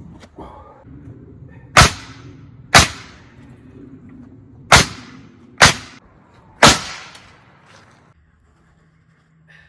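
Hammer driving nails into a wooden wall frame: five loud, sharp blows about a second apart, with a pause after the second.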